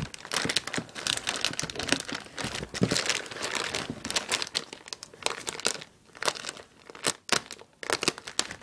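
Plastic poly mailer crinkling and crackling as it is gripped and cut open with a dull folding knife, with some tearing. The crackles come irregularly, with a couple of short pauses in the second half.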